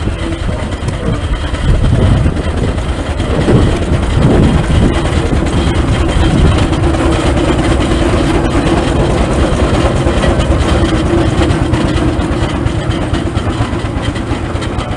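Steam roller running as it passes close by, a steady mechanical rumble with fine rapid clatter. A steady hum comes in about a third of the way through and fades before the end.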